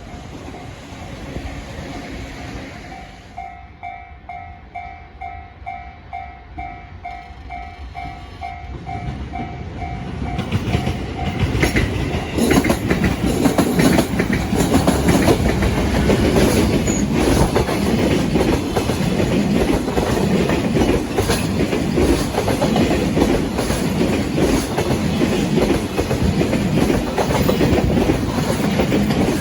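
Level-crossing warning bell dinging in a steady repeating rhythm, then a train arrives about eleven seconds in and passes close by. Its wheels clatter over the rail joints and the train drowns out the bell.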